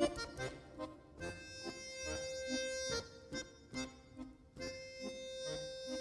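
Accordion playing a slow interlude: long held high notes, broken off every second or two, over short lower notes.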